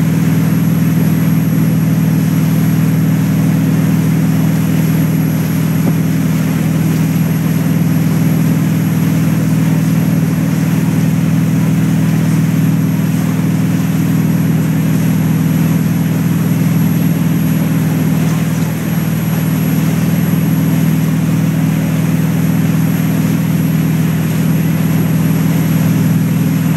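Boat engine running steadily under way as a constant low drone, over the rushing wash of the churning wake behind the boat.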